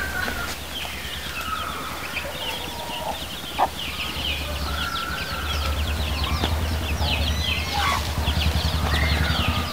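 Birds calling: many short, quick high chirps with a few longer, lower calls, over a steady low hum that grows louder about halfway through.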